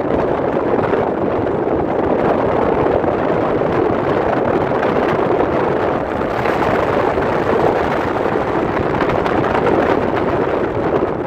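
Steady rushing noise of wind buffeting the microphone on a boat under way, fairly loud throughout.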